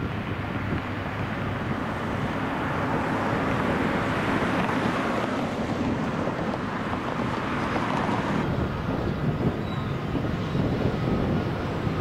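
Steady outdoor rumble of construction-site machinery and vehicles, swelling a little midway, with no distinct single event.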